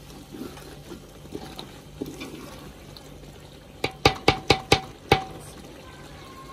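Wooden spoon stirring a wet chicken curry in an aluminium pot, then knocked sharply on the pot's rim six times in quick succession about four seconds in, each knock ringing briefly.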